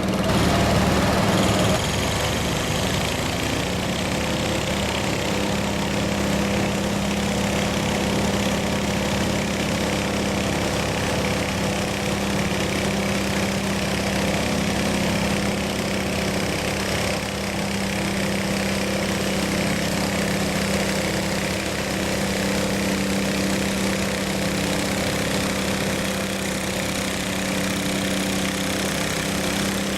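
Modified riding lawn mower engine running steadily, a little louder for the first couple of seconds and then holding an even pitch.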